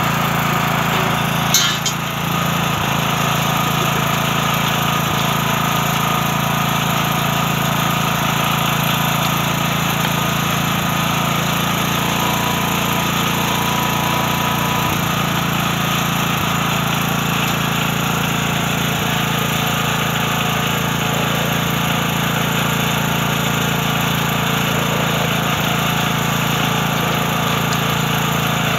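A small engine running steadily at a constant speed, with one short metallic clank about a second and a half in.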